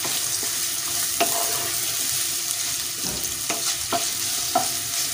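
Sliced onions and whole spices sizzling in hot oil in a kadhai as they are stirred, with a steady hiss and a few sharp knocks of the stirring utensil against the pan.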